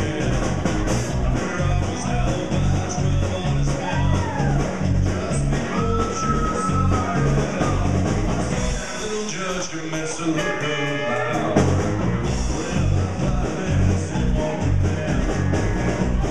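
Live rock-and-roll band playing an instrumental break with a steady, driving beat. The bass and drums drop out for about two seconds around the middle of the passage, then come back in.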